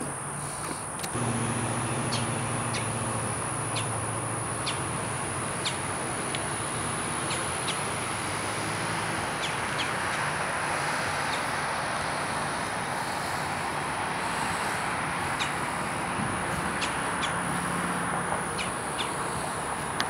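Outdoor field ambience: small birds chirping in brief calls over a steady hiss, with a low engine-like hum in the background, strongest during the first few seconds.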